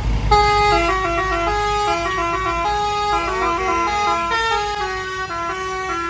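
Bus telolet horn, a Basuri multi-tone musical air horn, playing a tune of quick stepped notes, several tones sounding at once, starting about a third of a second in and running on. Underneath, a low vehicle rumble fades over the first second or two.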